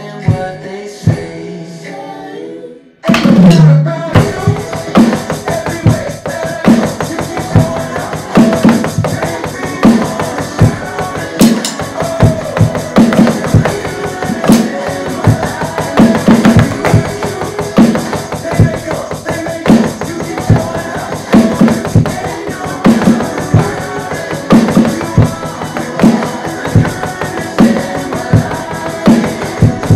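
Pop-rock song with a drum beat played along on an electronic drum kit. A quieter passage comes first. About three seconds in, a loud crash brings in a steady, driving beat of kick drum and snare.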